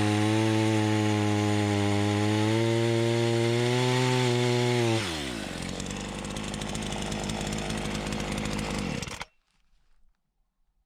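Two-stroke engine of an Alpina A3700 chainsaw running at high revs. About five seconds in, the engine speed falls quickly as it drops back to a lower, quieter idle. A little after nine seconds the sound cuts off abruptly.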